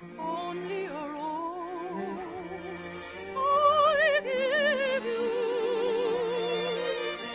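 Operetta singing: a high voice with wide vibrato over orchestral accompaniment, swelling louder about halfway through and holding a long note, heard on an old narrow-band radio recording.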